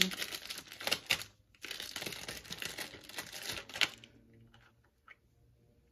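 Plastic packaging crinkling and rustling as small sample containers are unwrapped, with a short pause about one and a half seconds in. It stops about four seconds in, leaving a few faint clicks.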